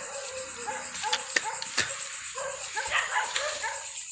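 Dogs barking repeatedly in short calls, over a steady high-pitched drone, with a few sharp clicks in the middle.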